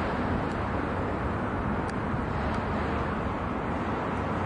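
Steady low rumble of a running motor vehicle, with a faint even hum under it and a few light ticks.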